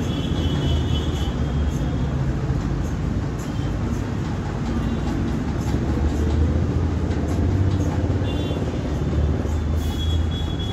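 A vehicle engine running with a steady low rumble. Short high-pitched tones come and go at the start and again near the end.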